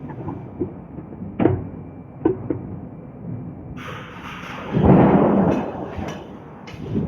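Hydraulic forging hammer working steel: a few sharp metal knocks, then a hiss from about four seconds in and a heavy rumbling blow about a second later, with another thump near the end.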